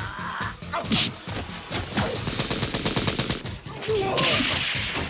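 Automatic rifle fire, as an animation sound effect, in rapid bursts, thickest about two to three seconds in.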